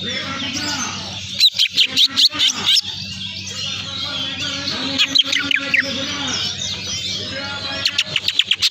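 Songbirds chirping and twittering busily, with loud rapid strings of sharp notes about a second and a half in, at five seconds and near the end, over a steady low hum. It is bird-lure song ('pancingan') meant to provoke caged songbirds that are slow to come into singing form.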